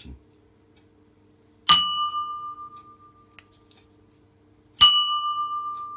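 A kitchen bowl, balanced on an upside-down spoon, struck twice with a pestle. Each strike rings out like a bell with a clear tone that slowly fades, and a small tick falls between the two strikes.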